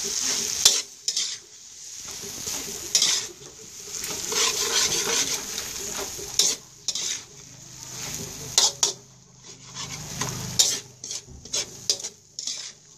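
Squid stir-frying in salted-egg sauce in a hot pan: the sizzle swells and fades as a spatula stirs it, with irregular clinks and scrapes of the utensil against the pan, several in quick succession near the end.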